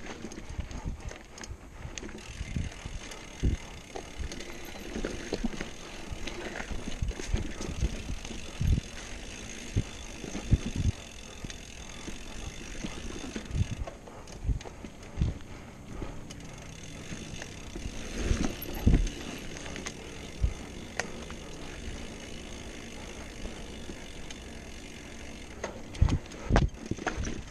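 Cross-country hardtail mountain bike ridden over rough, rocky dirt singletrack: irregular knocks and rattles as it hits rocks and roots, over steady tyre and wind noise. The hardest jolts come about two-thirds of the way through and again near the end.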